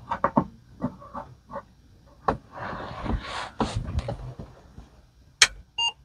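Clicks and rustling as circuit cards and parts are handled. Near the end comes a sharp click, then a short electronic beep: the Apple II Plus's power-on beep, the computer starting up.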